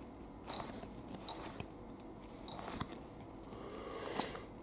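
Faint rustling and clicking of Magic: The Gathering cards being slid and flipped through by hand, with a few sharper snaps spread through.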